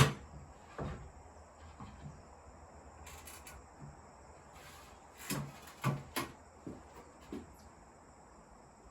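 A few scattered knocks and clicks, with a cluster of them about five to seven and a half seconds in, over a steady high chirring of crickets.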